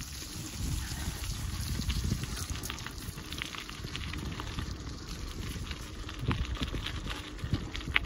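Bicycle tyres rolling over a wet gravel track: a steady crackle and patter of small stones over a low rumble.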